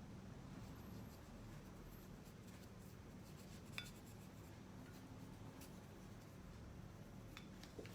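Faint rubbing as paint is spread over a plaster piece by hand, with a light click about four seconds in and a couple of small ticks near the end.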